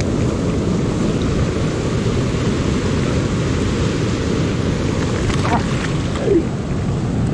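River water rushing steadily over rocks close by, a loud continuous rush with a low rumble.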